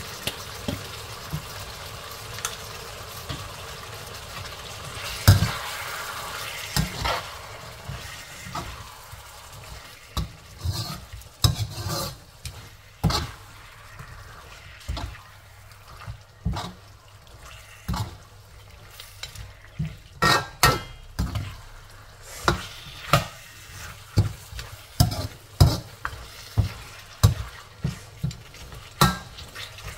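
Perforated metal spatula scraping and knocking against a wok while lamb and onions in tomato puree are stirred, over a soft sizzle of frying. The scrapes come sparsely at first, then every second or so from about ten seconds in, the loudest a single knock about five seconds in.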